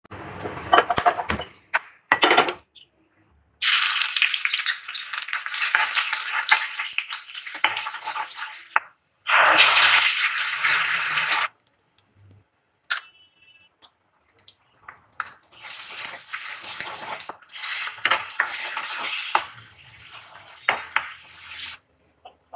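Hot oil sizzling and crackling in a kadhai as chopped aromatics and spices fry, with a spoon stirring against the pan. The sizzle comes in several stretches that stop abruptly, and there is a short clatter of utensils at the start.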